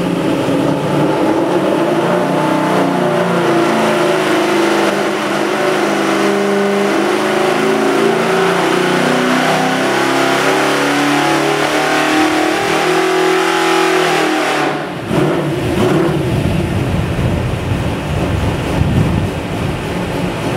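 A 363 cubic inch small-block Ford stroker V8 with solid roller lifters and stack EFI running on an engine dyno, heard outside through the dyno cell's tall exhaust stacks, its pitch stepping up and down as it is revved. About 15 seconds in the sound briefly dips and turns rougher and noisier.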